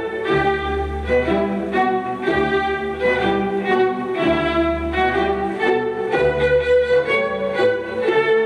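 Classical music with violin and other bowed strings playing a melody over a low bass line.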